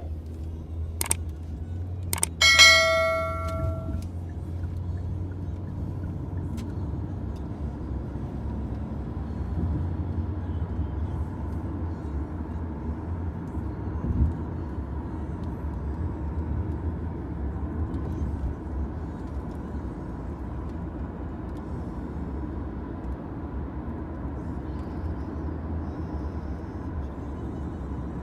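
Inside a taxi on the move: a steady low engine and road rumble. A couple of sharp clicks come in the first two seconds, then a single electronic chime rings and fades at about two and a half seconds in.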